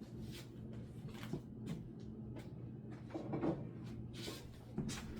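Handling sounds of an air fryer basket being lined with parchment paper: a string of short light clunks and paper rustles, about eight in all, over a faint low hum.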